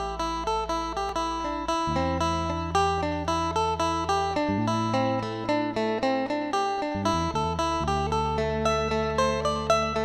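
Background music: a plucked string instrument plays a quick run of notes over held low bass notes that change every couple of seconds.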